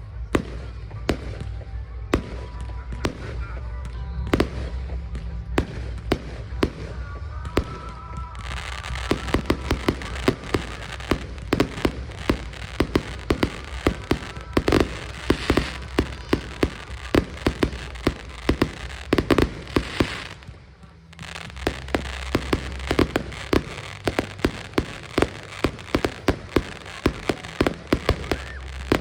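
Aerial fireworks: deep booms of bursting shells with rapid crackling pops, the crackle turning dense about a third of the way in, a brief lull about two-thirds in, then more booms and crackle.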